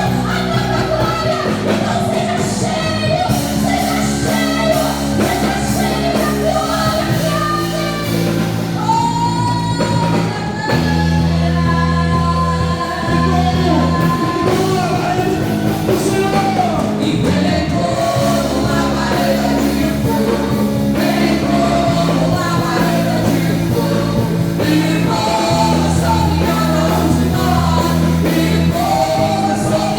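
Live worship music: a praise band with bass and keyboards plays while singers carry a melody in a large hall.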